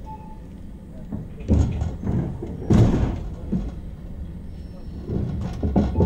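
Several loud bangs and thuds from railway cars during the wheel-change stop, over a steady low hum. The loudest bang comes a little under three seconds in, and a cluster of smaller knocks follows near the end.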